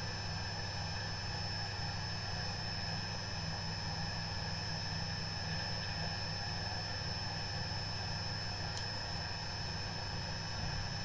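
Electric potter's wheel running steadily at throwing speed: a constant low motor hum with a thin high whine above it.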